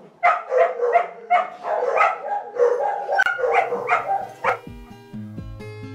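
Puppies whining and yelping in a rapid series of short, high cries, two or three a second. Acoustic guitar music starts near the end.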